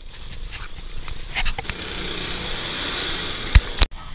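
Wind buffeting an action camera and tyre noise on asphalt from a bicycle ridden along a highway, a steady rushing haze. Two sharp knocks come near the end.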